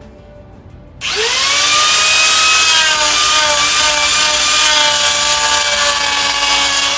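Electric rotary carving tool switched on about a second in: its whine rises as it spins up, then holds at a steady high pitch.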